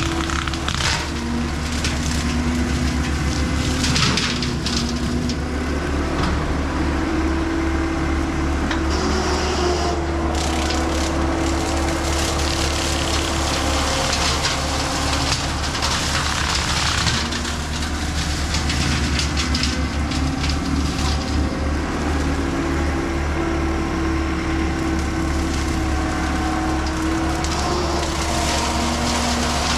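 John Deere 326E skid steer's diesel engine running hard as its hydraulic brush cutter chews through brush and saplings. Wood cracks and splinters irregularly throughout, and the engine's pitch dips and recovers as the cutter takes load.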